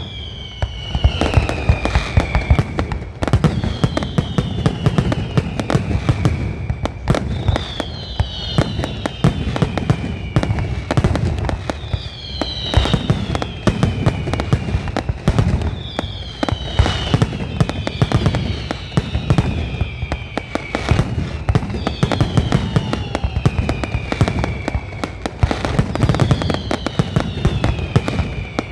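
A fireworks display with a dense, continuous barrage of bangs and crackles and a heavy low rumble. Over it, a high whistle falls in pitch, repeating about every four seconds.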